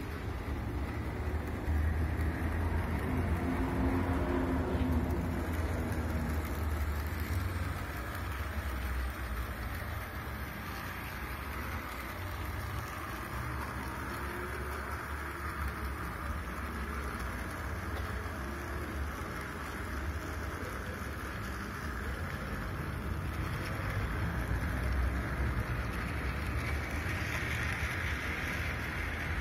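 Model railway track-inspection motor car running along the layout's track: a steady hum from its small electric motor and rolling wheels, over a low rumble.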